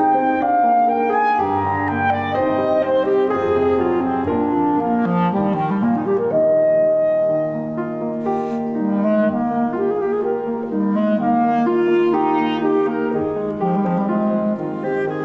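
Clarinet playing a melody over grand piano accompaniment, the clarinet holding one longer note about halfway through.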